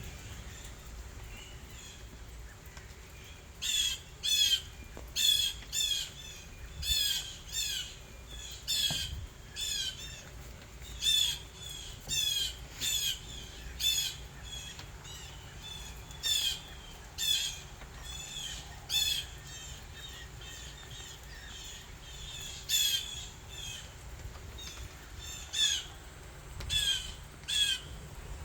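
A bird calling over and over outdoors: some two dozen short, loud calls, often in quick pairs or threes, starting a few seconds in over a steady low background.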